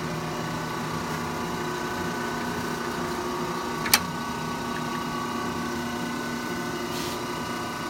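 1958 Monarch 76-inch by 120-inch engine lathe running with a steady hum of several held tones as its carriage moves under power rapid traverse. A single sharp click about four seconds in.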